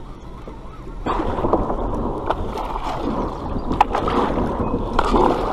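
Water rushing and gurgling against the hull of a small paddled boat moving through shallow river water, swelling up about a second in, with a few light knocks.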